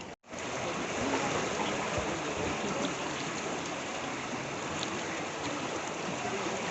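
Swollen river in flood, its water rushing steadily past.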